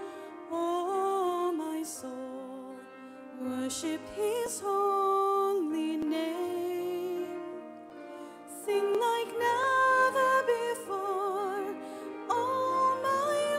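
Slow communion hymn: a solo voice singing long notes with vibrato in separate phrases over held accompaniment chords.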